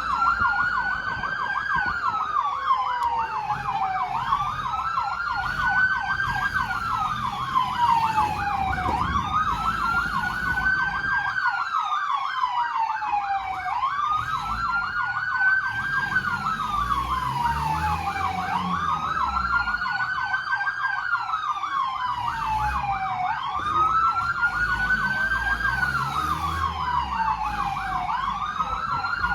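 Emergency vehicle siren wailing, its pitch climbing quickly and falling slowly, about every four and a half seconds, layered over a faster, rapidly warbling siren tone, with a vehicle engine rumbling underneath.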